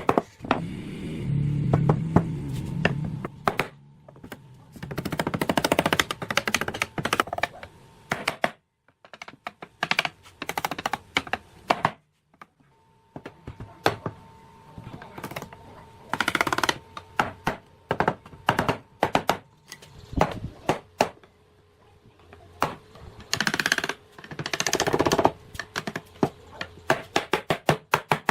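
Woodworking in a workshop: a long series of sharp knocks and taps of tools on wood, broken by several noisy stretches of a second or two each.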